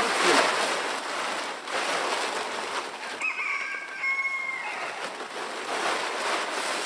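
A rooster crows once, about three seconds in, a wavering start and then a held, level note that stops after about a second and a half, over a steady rustling hiss.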